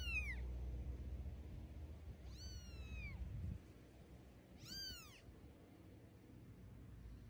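Kitten mewing: three high, thin meows that each rise and fall in pitch, one right at the start, a longer one about two and a half seconds in and one about five seconds in. A low hum runs underneath and stops about three and a half seconds in.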